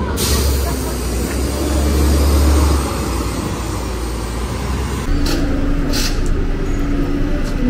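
A city bus's engine rumbling as it drives along the road just below, loudest about two and a half seconds in, over steady street traffic. A few sharp knocks follow in the second half.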